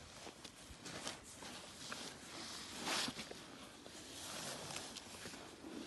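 Faint rustling and small scuffs as an elephant calf's trunk rubs and curls around a person's arm and cotton uniform sleeve, with a louder breathy rush about three seconds in.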